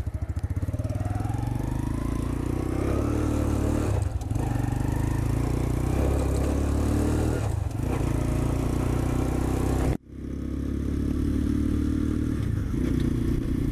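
A 125cc sportbike engine pulling away and accelerating, its note rising over the first few seconds. The sound dips briefly about 4 and 8 seconds in and drops out sharply about 10 seconds in before it comes back; these breaks fit gear changes.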